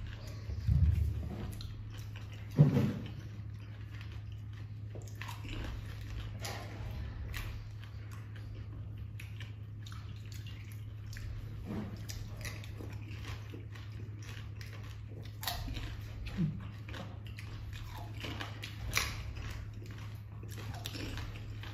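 Crunching and chewing as crisp fuchka (pani puri) shells are bitten and eaten, in scattered short crunches with a couple of louder knocks about a second and nearly three seconds in, over a steady low hum.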